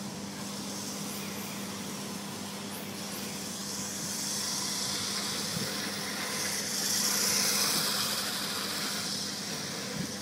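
Radio-controlled drift car driving and sliding on a smooth concrete floor: a steady hiss of tyres and drivetrain that swells louder about seven seconds in.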